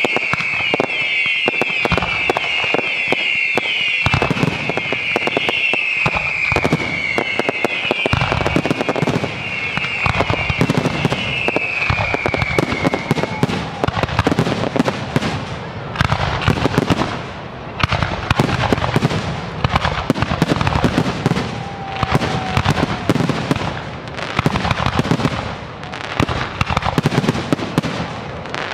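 Fireworks display: a dense barrage of aerial shell bursts and bangs. For roughly the first half, a run of high whistles, each falling in pitch, plays over the bursts and then stops.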